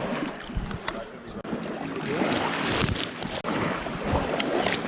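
Wind and water noise out on the water, a rough, uneven rush on the camera's microphone with scattered short knocks and two brief dropouts.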